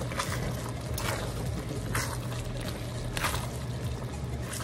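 A spatula stirring thick, creamy chicken stew in a wok: wet sloshing strokes about once a second, over a steady low hum.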